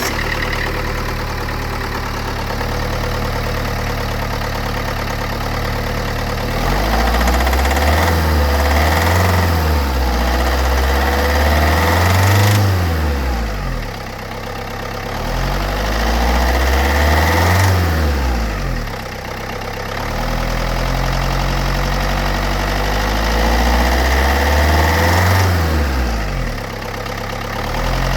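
Diesel engine idling steadily, then revved up and down repeatedly from about six seconds in. It is making a noise that the owner takes for a sign that something is wrong.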